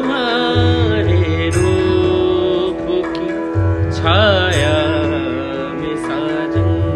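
Background music: a steady drone under a melody line that wavers and bends, with its most ornamented phrases near the start and again about four seconds in.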